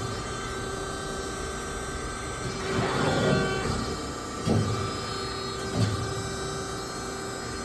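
Amada HFE 220-4S hydraulic CNC press brake running, with a steady hum from its hydraulic power unit. A swell of mechanical noise comes about three seconds in, then two sharp clunks about a second and a half apart.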